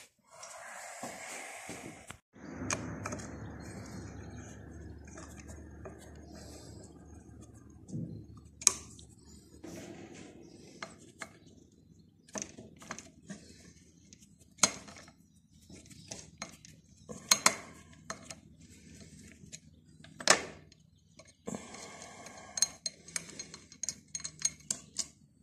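Hand tools and metal engine parts clinking and knocking during work on a Lombardini (Antor) engine's flange cover: irregular sharp metallic clicks and knocks, a few of them louder, over a faint low steady hum.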